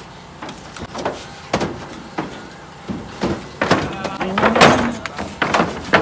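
Irregular knocks and thuds of a bull's hooves on a pickup truck's metal bed and wooden unloading ramp as it is pushed off the truck, the loudest cluster a little past the middle.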